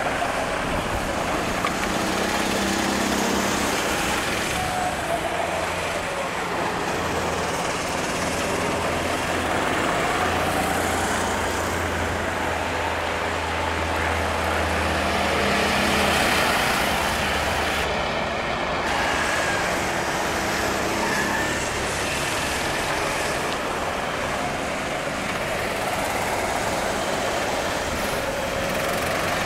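Go-kart engines running as Sodi RT8 karts lap a wet track, their pitch rising and falling as they pass and accelerate out of the corners.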